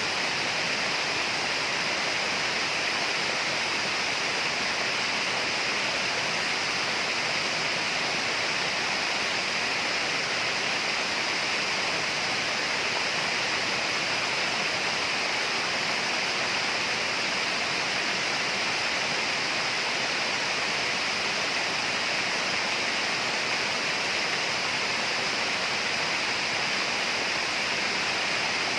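Steady tropical rainforest ambience: an even, unbroken rushing hiss that does not change.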